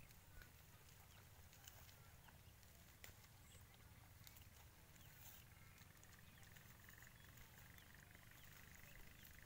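Near silence: faint outdoor ambience with a low wind rumble on the microphone, a few faint clicks and small high chirps.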